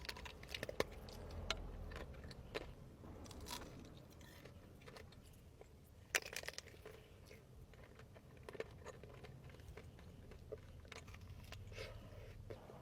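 Close-up eating sounds of a frozen mousse pastry: scattered crunching and chewing crackles with small clicks, the sharpest about six seconds in.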